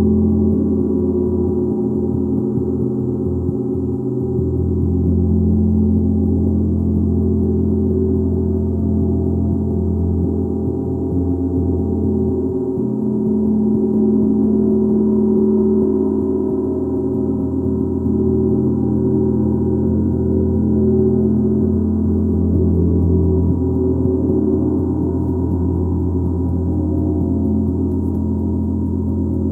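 Gong played continuously: a sustained wash of many overlapping low tones with no separate strikes standing out, swelling and easing in slow waves.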